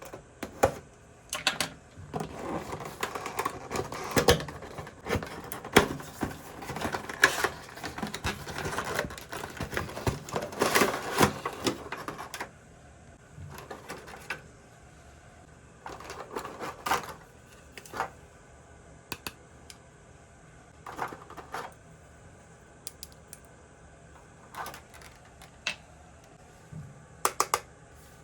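Hands unboxing and handling small plastic toys and their packaging: a busy stretch of rustling and rapid clicking and clattering, then scattered single clicks and taps from about halfway on.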